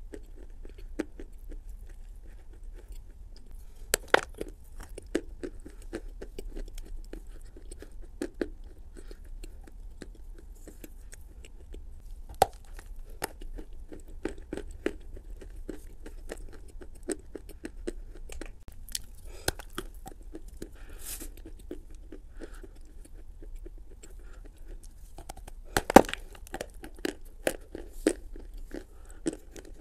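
Close-up mouth sounds of someone eating Turkestan edible clay: wet, sticky chewing of clay paste with many small clicks, and sharp crunches of bites into a dry clay chunk, the loudest about 4 seconds in and again about 26 seconds in.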